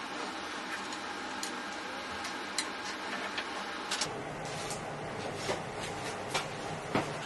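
Scattered light clicks and taps of small hardware and parts being handled on a workbench, over a steady low room hum.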